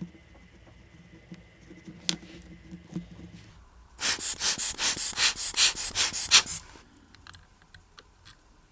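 A quick run of about ten hissing puffs of air, roughly four a second, lasting about two and a half seconds, after a couple of light clicks.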